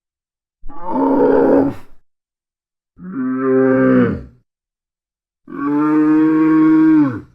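Dromedary (Arabian camel) calling three times, each a low, pitched groaning call of about a second and a half. The second and third calls drop in pitch as they end.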